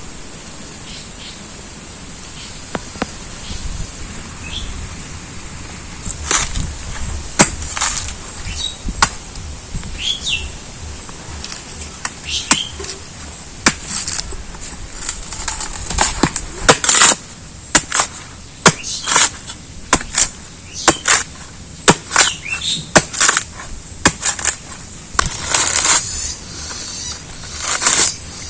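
Machete blade chopping into the husk of a green coconut: sharp strikes, irregular, one or two a second, starting about six seconds in. Birds chirp now and then.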